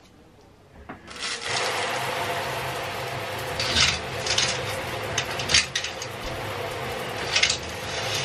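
Shower running with a steady hiss of spray, starting about a second in. Over it, four short scrapes of shower-curtain hooks sliding along the curtain rail as the curtain is pulled and hooked up.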